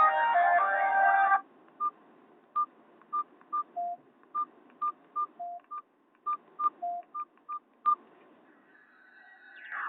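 Nokia 216 phone speaker: a polyphonic ringtone cuts off about a second and a half in. Then comes a string of short single beeps at uneven intervals, most at one pitch and three lower, the phone's keypad tones as the menu is stepped through. Near the end a new tone swells in.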